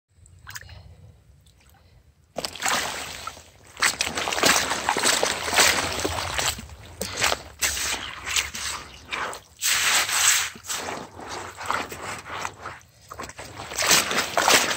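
Hands scooping and churning wet gravel and muck in shallow river water: irregular sloshing, splashing and gritty scraping in bursts, starting about two seconds in.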